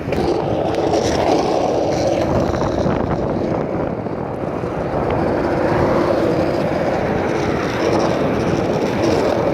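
Steady, loud rumbling noise with no speech.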